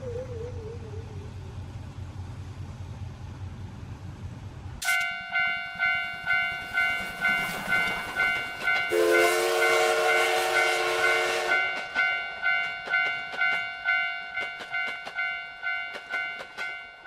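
Railroad crossing alarm ringing in steady 'kan-kan' strokes, a little under one and a half a second, starting suddenly about five seconds in. From about nine seconds a passing train sounds a horn for about two and a half seconds, then its wheels click over the rail joints as the alarm fades near the end. Before the alarm starts there is a low hum and a warbling tone sliding down in pitch.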